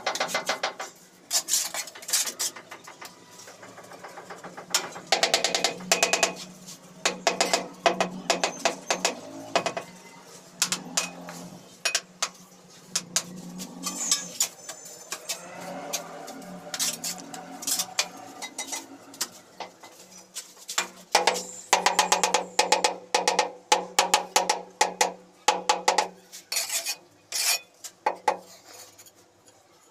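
Trowel tapping ceramic wall tiles in quick runs of ringing taps to bed them into the mortar, with the trowel scraping mortar and tile between the runs.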